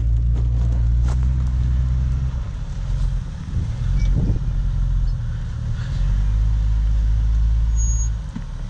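Jeep Wrangler's engine running at low revs as it crawls up a rock ledge. The throttle eases off a little after two seconds in and again near the end.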